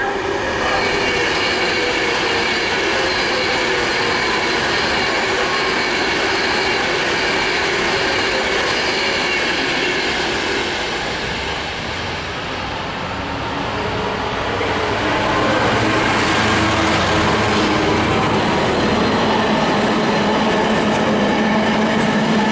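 Freightliner Class 66 diesel locomotive hauling an intermodal container train through the station. As it approaches there is a steady rumble with high ringing tones. From about two-thirds in, the engine note grows louder, followed by the flat wagons rumbling and clattering past.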